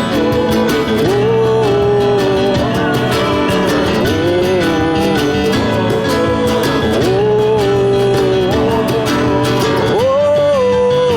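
Acoustic band playing an instrumental break: strummed acoustic guitars under a melody line that holds notes and slides between them.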